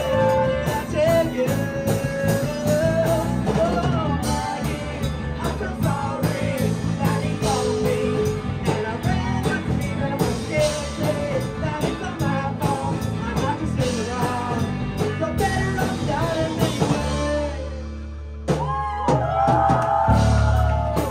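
Live rock band playing a song: lead vocals over drum kit, electric guitar and bass. About seventeen seconds in, the drums stop while a low chord holds, and the voice comes back a moment later with long held notes.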